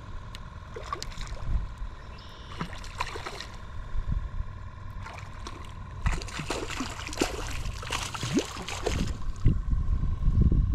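A hooked fish splashing and thrashing at the water's surface as it is reeled in close, the splashes thickest in the second half, with low rumbling near the end.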